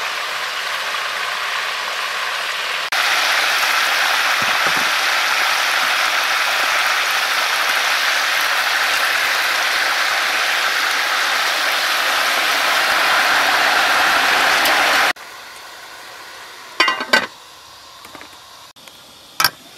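Whole chicken sizzling in a hot pot, a loud steady hiss that gets louder about three seconds in and cuts off suddenly. After it, a quieter wood fire with a few sharp crackles.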